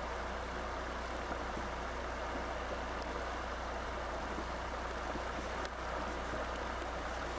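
Steady rushing noise with a low hum beneath it and a single brief click about three-quarters of the way through.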